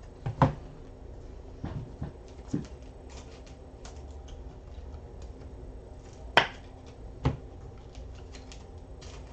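A few scattered sharp clicks and taps from trading cards and packs being handled on a tabletop, the loudest about six seconds in, over a low steady room hum.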